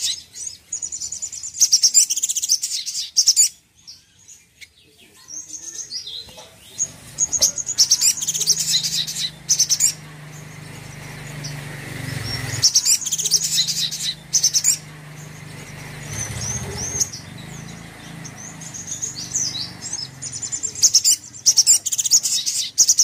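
Brown-throated sunbird singing in bursts of high, fast chirping trills. There are four or so phrases with short pauses between them. A faint low hum runs under the middle part.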